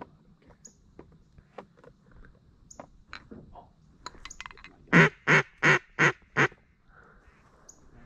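A duck call blown close by: a quick run of five even quacks, each a little softer than the last, starting about five seconds in. Faint clicks and a few short high chirps come before it.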